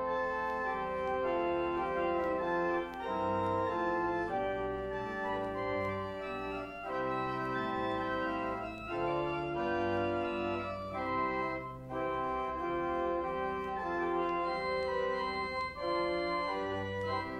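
Church organ playing a postlude at the close of the service: held chords that change every second or so over a slowly moving bass line.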